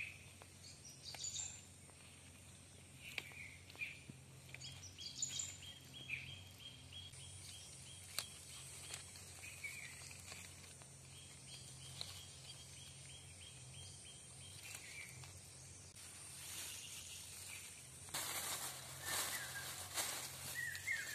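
Quiet woodland ambience: scattered bird chirps and a short run of repeated calls over a low steady hum. Near the end comes rustling and crinkling of a plastic bag and footsteps on dry leaves.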